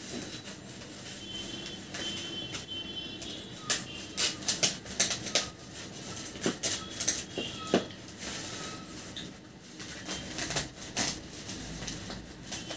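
Scissors snipping through a thin plastic courier bag, the plastic crackling and rustling as it is cut and pulled open. The sharp snips and crackles come in clusters, mostly in the middle and again shortly before the end.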